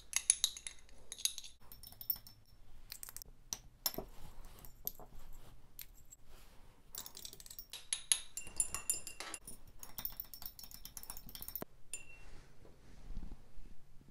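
Metal spatula stirring a liquid in a glass beaker, clinking and scraping against the glass with faint ringing. The clinks come in quick runs, once near the start and again for a few seconds in the middle, with quieter glass handling between.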